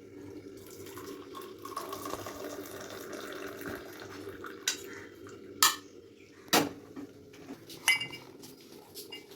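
Dishes and utensils clattering: a few sharp clinks and knocks about five to eight seconds in, over a steady low hum.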